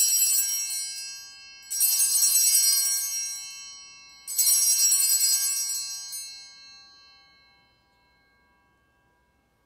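Altar bells rung three times, about two seconds apart, each ring shimmering and dying away, the last fading slowly. They mark the elevation of the chalice just after its consecration at Mass.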